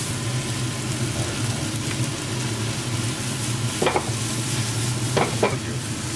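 Fried noodles sizzling in a hot wok as they are stirred and tossed, over a steady low hum, with a few short clinks about four and five seconds in.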